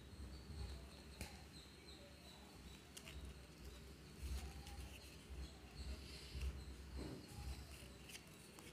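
Faint handling noise of a plastic wireless-earbud charging case: a few soft clicks as the lid is worked and the earbuds are handled, over a low rumble of hands moving.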